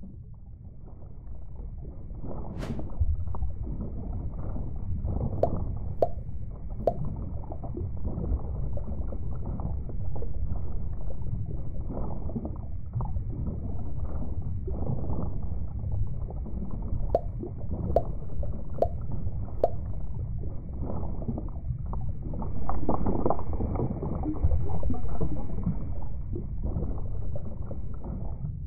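Muffled underwater-style ambience: a low, steady rumble of water with gurgling and a few sharp clicks, swelling louder for a few seconds about two-thirds of the way through.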